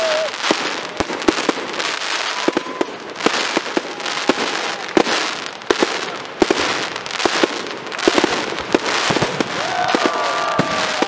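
Aerial fireworks display: a dense, continuous crackling from bursting white crackle stars, broken by many sharp bangs of shells going off.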